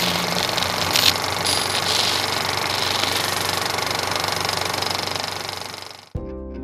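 Harsh static noise sound effect, a hiss with a fast rattling flutter and a few crackles, played with a glitch transition; it fades and stops about six seconds in, when guitar music starts.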